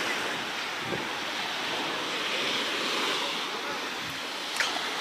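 Small sea waves breaking and washing up onto a sandy beach, a steady surf wash, with wind buffeting the microphone. A single sharp click near the end.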